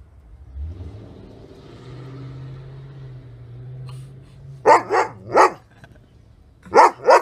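Dog barking in sharp single barks: three in quick succession about halfway through, then two more near the end, after a few seconds of a low steady rumble.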